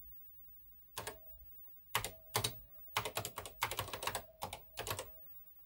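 Keystrokes on a NASCOM 1 computer keyboard as a command is typed: about a dozen short clicks in uneven runs, starting about a second in.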